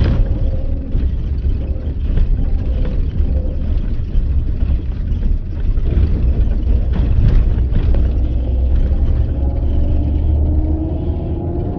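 Bus engine and road noise: a heavy, steady low rumble with scattered knocks and rattles. The engine note rises near the end.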